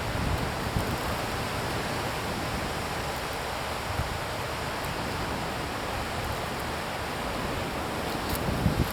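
Steady outdoor hiss, like wind through leaves, with low rumbling gusts of wind on the microphone about a second in and again near the end.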